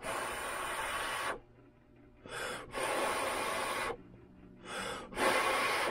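A person blowing three long breaths of air, with a quick breath in before each of the last two, to dry freshly applied blue layout fluid.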